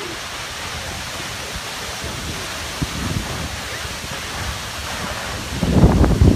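Waterfall rushing steadily close by. About five and a half seconds in, loud gusty buffeting of wind and spray on the microphone sets in over it.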